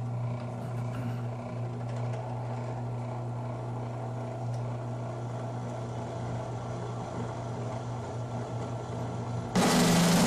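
Benchtop drill press motor running steadily while a step bit bores a hole through 1/8-inch aluminium plate. About nine and a half seconds in, the sound jumps suddenly louder and harsher.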